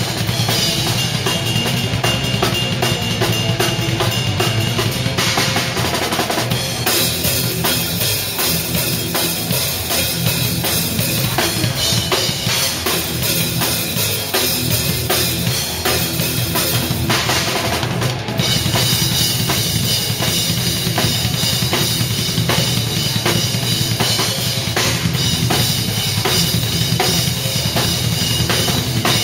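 Drum kit played fast and hard in a live band performance, with rapid kick drum, snare and cymbal strokes over the rest of the band, picked up close to the kit. The pattern changes twice, about six and eighteen seconds in.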